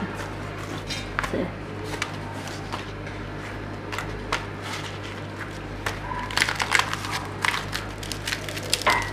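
Hands tearing and crumbling thin, dry cooked semolina flatbread, giving scattered crackles that come thicker and louder in the last few seconds, over a steady low hum.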